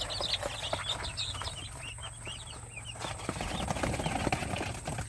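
Young poultry chicks peeping rapidly and repeatedly as they are moved, with rustling and wing flapping from the handled birds growing stronger in the second half.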